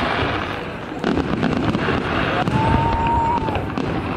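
Fireworks display: many shells bursting and crackling in quick succession, with a single whistle sounding for about a second past the middle.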